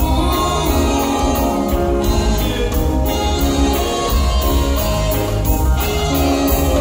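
Live reggae band playing in full: electric guitars, bass and drums, a horn section and a lead singer, with heavy bass throughout.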